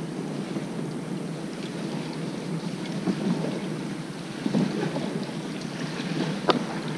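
Wind noise on the microphone over water sloshing against a fishing kayak's hull, with a few light knocks in the second half.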